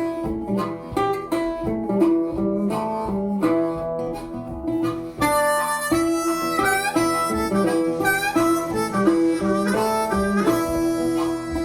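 Background music: acoustic guitar picking, with a harmonica joining about five seconds in.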